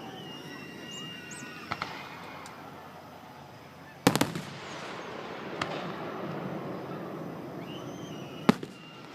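Aerial fireworks bursting. Two small cracks come first, then a loud rapid cluster of bangs about four seconds in, another crack, and one loud single bang near the end.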